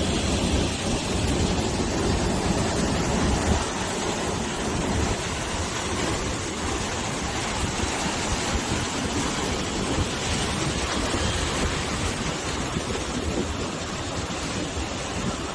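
Sea waves breaking and washing on the shore with wind, a steady rush of surf that is a little heavier in the low end for the first few seconds before easing.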